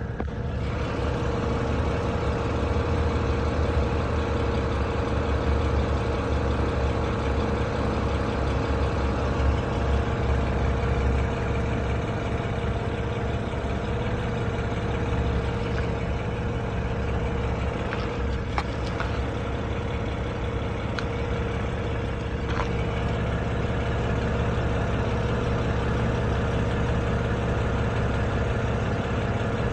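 BMW N52 inline-six petrol engine idling steadily, with a knock that the owner places low down in the engine. A few sharp clicks stand out about two-thirds of the way through.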